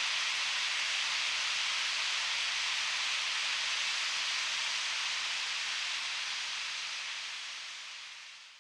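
Steam hissing steadily from a pipe, fading away over the last couple of seconds.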